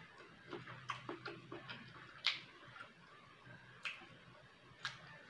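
Close-up eating sounds: a string of sharp wet mouth clicks and smacks while chewing, about six in all, the loudest a little over two seconds in.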